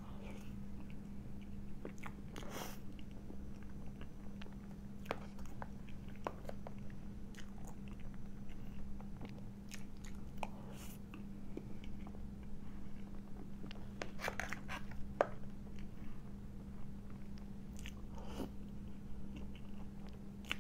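Close-up eating sounds of chocolate mousse cake taken from a spoon: soft chewing and biting with scattered short clicks, over a steady low hum.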